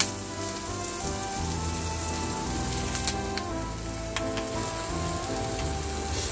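Elephant foot yam slices shallow-frying in oil in a nonstick pan: a steady sizzle, with a few sharp clicks about three and four seconds in.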